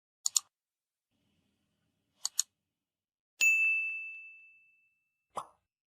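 Edited-in sound effects: two quick double clicks, then a bell-like ding that rings out and fades over about a second and a half, and a short soft thump near the end.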